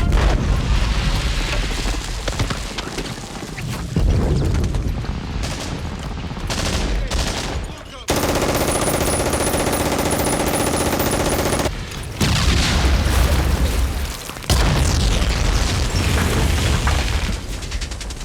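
Battle soundtrack of a beach landing: dense rifle and machine-gun fire with heavy explosions. From about eight seconds in, it gives way for roughly four seconds to a steady, ringing drone of several tones that starts and stops abruptly, before the gunfire returns.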